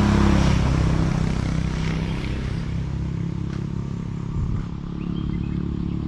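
A motor vehicle's engine passing on the road, loudest at the start and slowly fading as it moves away.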